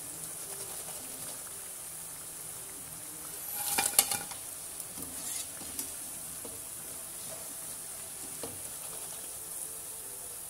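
Hot oil sizzling steadily in a steel kadhai as cauliflower pakoras deep-fry and are scooped out with a steel mesh skimmer. About four seconds in, the sizzling surges and ends in a sharp metallic clink.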